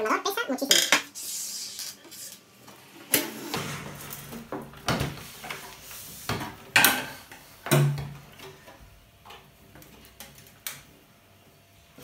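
Metal parts of a microwave oven being handled during disassembly: a series of sharp metallic clinks, knocks and rattles from the sheet-metal casing and loose parts, quieter near the end.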